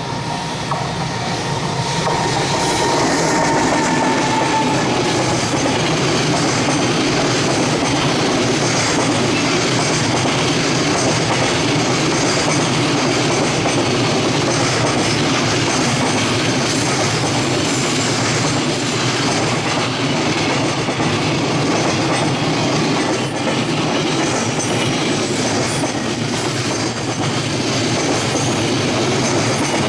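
JR Freight freight train rolling past on a curve, its wagons rumbling and clacking steadily over the rails. A thin tone is heard for the first few seconds.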